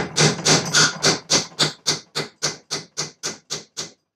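Hammer tapping a roll pin punch against the belt grinder's electric motor, a steady run of metal-on-metal blows at about four a second that get a little lighter toward the end. This is the punch work of pulling the motor apart to replace its bearings.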